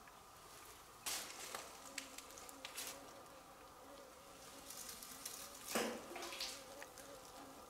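An insect buzzing faintly and steadily, with its pitch wavering slightly. A few brief rustles cut across it, the loudest about six seconds in.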